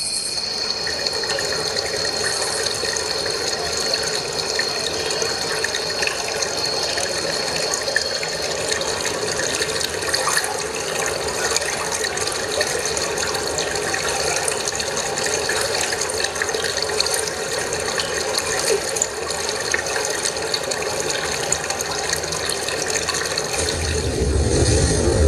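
A loud, steady rushing noise with fine crackle in it, played as a recorded sound effect over the hall's loudspeakers. A deep rumble joins it near the end.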